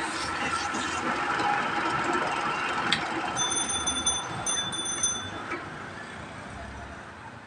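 Wood lathe running with a turned wooden table leg spinning on it: a steady mechanical hum and whoosh. Its level falls gradually over the last couple of seconds. About 3 s in there is a sharp click, then a short run of high, thin beeps.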